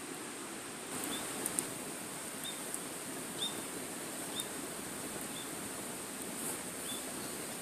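Wood campfire burning in a small fire pit, crackling over a steady hiss, with a few sharp pops, the loudest about a second and a half in. A faint short chirp repeats about once a second.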